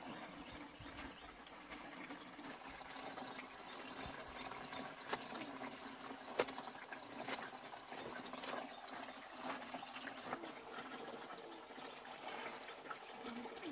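Water streaming steadily from a pipe spout into a plastic basin, with intermittent splashes and sloshing as clothes are scrubbed and wrung by hand in soapy water.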